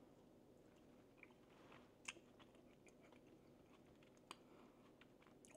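Faint chewing of a goat cheese ball on a pretzel stick: scattered soft crunches and mouth clicks, the clearest about two seconds in and again a little after four seconds.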